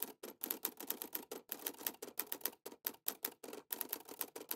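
Typewriter sound effect: a quick, steady run of key clacks, about seven or eight a second.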